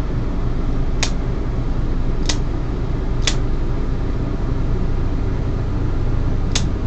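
Dog toenails being cut with scissor-style nail clippers: three sharp snips about a second apart, then a fourth near the end. Under them runs a steady fan-like whir.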